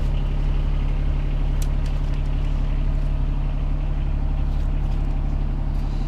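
Garden tractor's engine idling steadily, a low even hum.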